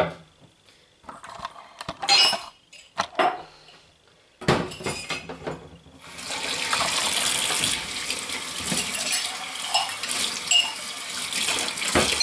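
Dishes and cutlery clinking and knocking as they are handled. About four and a half seconds in a kitchen tap is turned on, and from about six seconds it runs steadily into the sink while something is washed under it.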